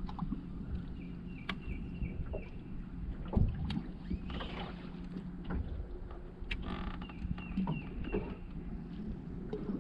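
Small waves slapping and knocking irregularly against a bass boat's hull, over a steady low hum.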